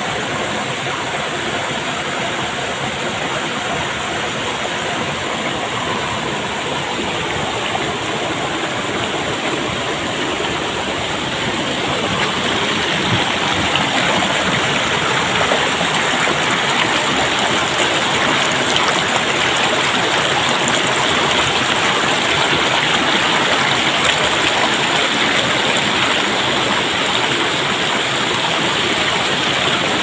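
Stream water rushing and splashing over boulders and down small rock cascades, a steady noise that grows louder about twelve seconds in.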